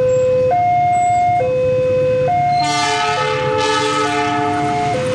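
A two-tone warning alarm alternates steadily between a low and a high note, each held just under a second. A little over two and a half seconds in, the locomotive of a fuel-tanker freight train sounds its multi-note horn chord for about two and a half seconds.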